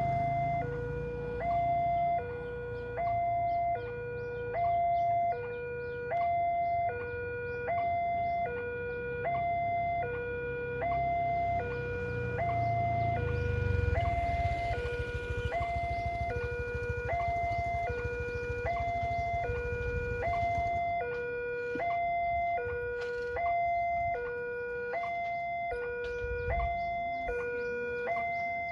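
Railway level-crossing alarm sounding as the barrier is down: an electronic warning alternating steadily between a lower and a higher tone, about one high-low pair per second. A low rumble sits beneath it, strongest around the middle.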